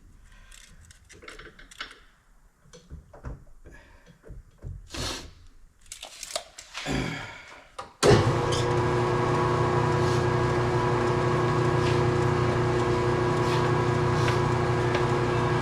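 Light clicks and knocks of parts and tools being handled, then a machine switches on abruptly about eight seconds in and runs at a steady level with a humming tone.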